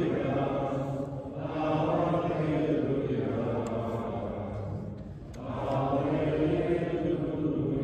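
Gospel acclamation sung as a slow chant, an Alleluia in three long sustained phrases with short breaks about a second in and about five seconds in.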